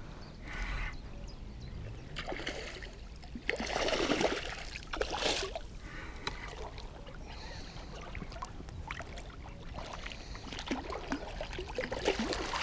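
Water splashing and sloshing around a wading angler while a hooked sea bass is brought in at the surface, with the loudest splashes about four and five seconds in.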